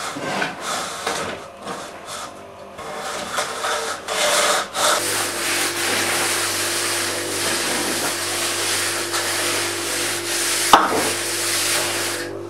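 Floor screed being worked by hand: a straightedge scraped across the wet screed in short strokes, then, from about five seconds in, hand floats rubbed steadily over the levelled surface with a continuous gritty scraping. A single sharp knock about eleven seconds in.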